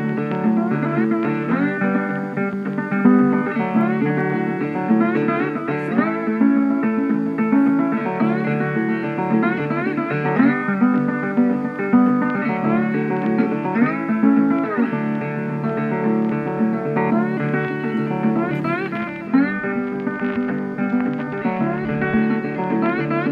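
Background music led by a plucked guitar, its melody notes sliding up and down over a steady accompaniment.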